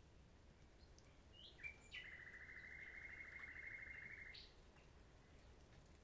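Faint common nightingale song: a few short notes, then a rapid, even trill of repeated notes lasting about two seconds, ending in a sharp upward note.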